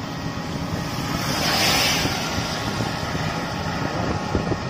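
A three-wheeler rickshaw running along a wet road, a steady low drone with road noise. A hiss swells and fades about one and a half seconds in.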